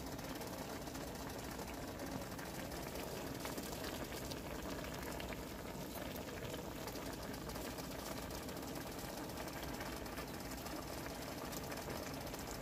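Wok of coconut milk with string beans simmering: a steady, low bubbling and crackling that holds even throughout.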